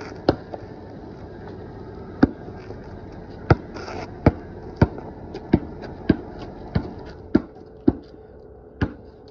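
Basketball bouncing on a concrete driveway: a steady dribble of sharp knocks, about one every two-thirds of a second.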